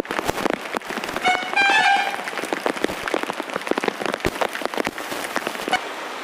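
Heavy rain falling on a flooded street, with many sharp drop hits close by. A vehicle horn sounds briefly about a second and a half in, the loudest sound. The hits stop near the end, leaving a steady rain hiss.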